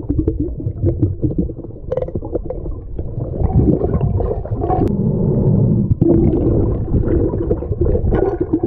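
Muffled underwater rumble and gurgling of moving seawater as heard by a submerged action camera, with a few faint clicks from gravel and shells on the seabed.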